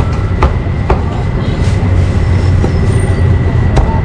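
A steady low mechanical rumble, with a few sharp knocks of a cleaver chopping meat on a board.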